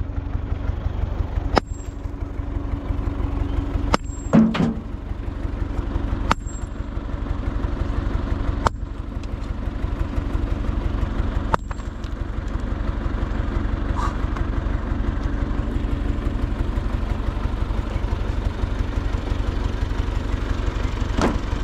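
Tractor engine idling steadily, with a few sharp knocks over it, the loudest a little over four seconds in.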